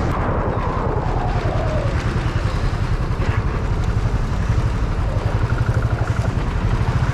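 Motorcycle engine running steadily as the bike is ridden along the road, its exhaust a fast, even low throb.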